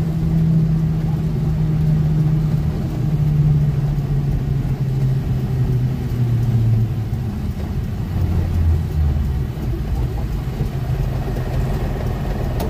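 A vehicle's engine and road noise heard from inside the cab while driving; the engine note falls gradually over the first several seconds and then levels off.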